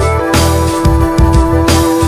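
Electronic music track: a pulsing bass line under held chords, with a bright swell about a third of a second in and another near the end.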